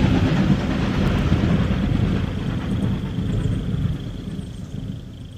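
A low, noisy rumble fading out steadily, a sound effect closing out a song, with a thin steady high tone underneath.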